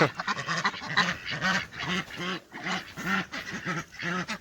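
Domestic ducks quacking, one giving a steady run of repeated quacks about two a second while others call over it.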